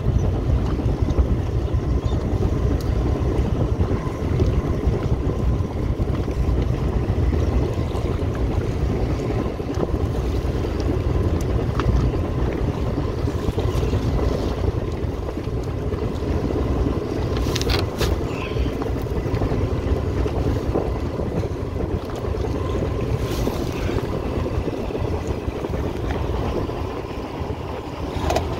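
Fishing boat's engine running steadily under way, with wind on the microphone. A couple of brief knocks about two-thirds of the way in.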